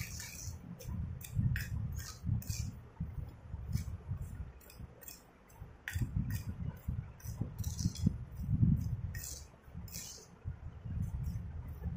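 A steel spoon stirring a watery brown paste in a clay bowl, clinking and scraping against the bowl again and again at an uneven pace, over a low wet churning sound.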